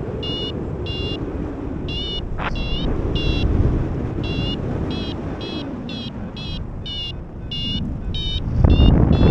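Paragliding variometer climb tone from a phone vario app (FlyMe): short high beeps, about two a second, signalling that the glider is rising in lift. Wind rushes on the microphone underneath and gets louder near the end.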